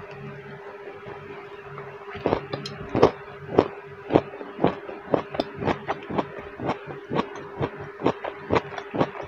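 Close-miked chewing of stir-fried vegetables and tuna: crisp crunches about twice a second, starting about two seconds in, over a steady low hum.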